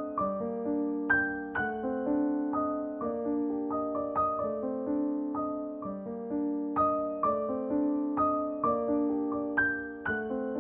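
Soft piano music: single notes struck one after another, a couple each second, each ringing out and fading.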